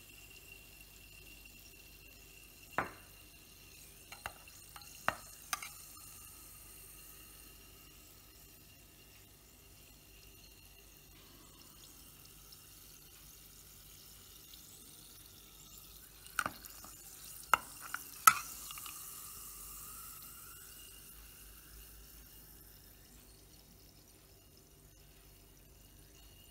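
Faint fizzing of carbonated water in a drinking glass, broken by a few sharp clicks in two clusters: about three to six seconds in, and again around sixteen to eighteen seconds in.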